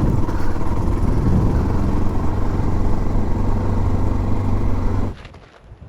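Motorcycle engine running steadily while riding. The sound cuts off abruptly about five seconds in, leaving quieter wind noise.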